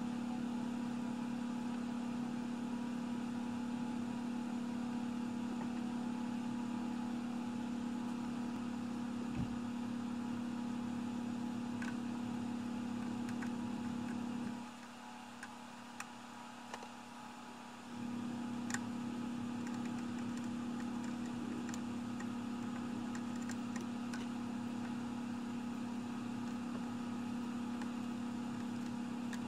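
Steady hum of a small motor or fan, made of several fixed tones. It drops away about fifteen seconds in and returns about three seconds later, with a few faint clicks and ticks over it.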